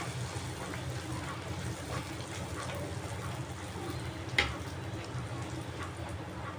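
Bhatura deep-frying in hot oil: steady sizzling and bubbling with small crackles as oil is spooned over it with a wire skimmer. A single sharp click a little past four seconds in.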